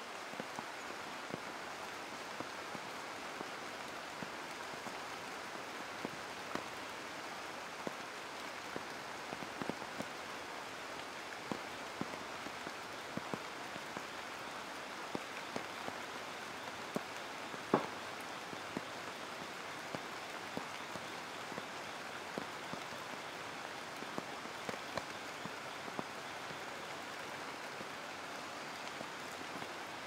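Rain falling on the leaves of the Amazon rainforest canopy: a steady hiss with scattered individual drops landing close by, one louder drop a little past halfway.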